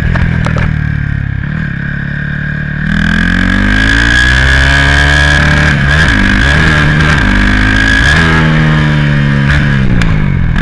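Turbocharged Honda Titan 160 single-cylinder motorcycle engine revving up about three seconds in, held high with a few short dips, then dropping back near the end, with a steady high whine over it. No turbo flutter: with the vacuum line blocked it gives only the turbo's usual blowing sound.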